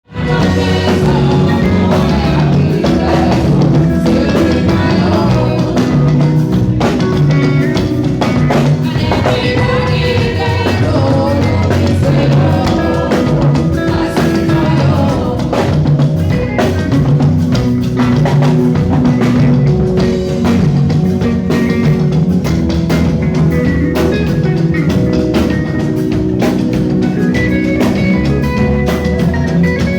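Live rock band playing at a sound check, with a drum kit, guitar and singing over a steady beat.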